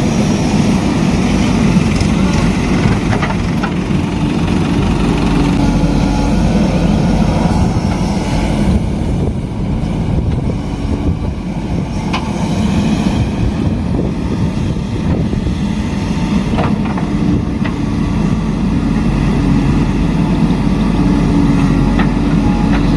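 A heavy earthmoving machine's diesel engine running steadily, with a few faint knocks over it.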